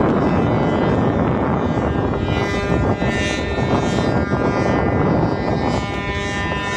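A boat's engine running steadily, with wind buffeting the microphone.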